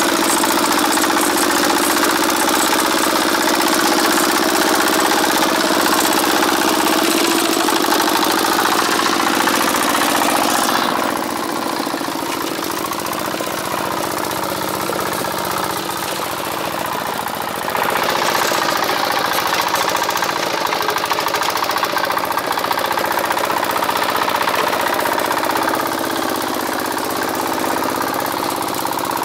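Single-cylinder diesel engine of a two-wheeled walking tractor running steadily under load as it drives a rotary tiller through wet soil. Its sound drops in level about eleven seconds in and comes back up about seven seconds later.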